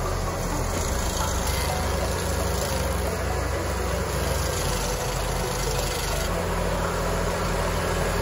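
Carlton 7015 TRX tracked stump grinder running steadily under load as its cutter wheel grinds down a tree stump, engine drone and cutting noise blended together.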